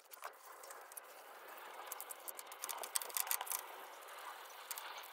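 Sandpaper rubbed by hand over a cast iron table saw top, a fine-grit final sanding pass: a dry scratchy rubbing, with a run of sharp ticks and scrapes about halfway through.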